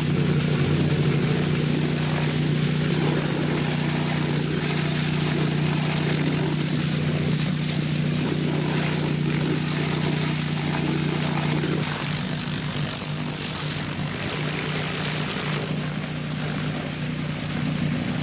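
Pressure washer running steadily: a constant motor hum under the hiss of the water jet. The spray noise eases off about twelve seconds in.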